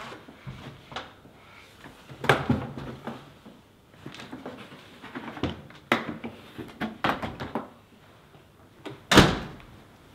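A hotel room door opening, then a run of knocks, clicks and rattles as two hard-shell rolling cases are wheeled in and handled, with a louder clatter about two seconds in and one loud thud near the end.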